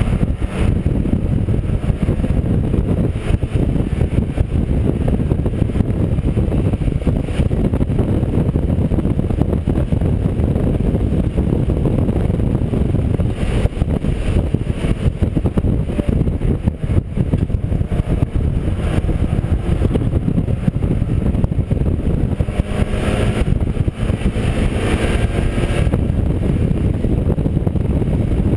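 Mazda MX-5 race car heard from onboard at racing speed: its engine running hard under a steady, loud blanket of mechanical and road noise. The sound turns brighter and higher for a moment about halfway through and again near the end.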